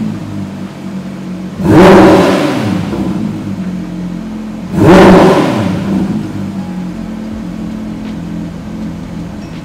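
Porsche 911 (992) GT3 Touring's naturally aspirated 4.0-litre flat-six at idle, blipped twice: each time the revs leap sharply and fall back quickly. After the second blip it settles into a steady idle.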